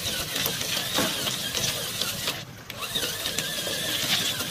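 FTX Hi-Rock 1/10-scale RC crawler's electric motor and gear drivetrain whining as it crawls over beach pebbles, with stones clicking and knocking under the tyres. The whine wavers up and down with the throttle and dips briefly about two and a half seconds in.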